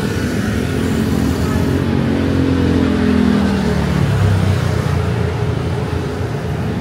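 City bus engine running as the bus pulls up along the kerb, its note falling as it slows about halfway through, over steady road traffic noise.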